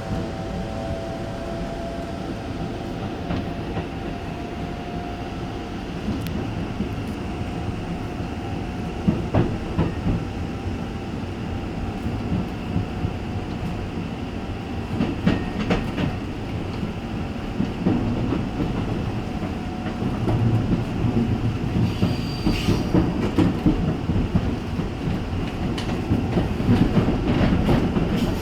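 Gangway between cars of a Taiwan Railways EMU900 electric multiple unit on the move: a steady rumble of wheels on rail with scattered clicks over rail joints. A faint whine in the first few seconds fades away, and the running gets louder in the last third, with a brief high squeal a little past two-thirds through.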